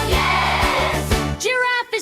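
Upbeat children's song music with a steady beat. About one and a half seconds in, the backing drops away, leaving one held note that slides up into place, then a short break.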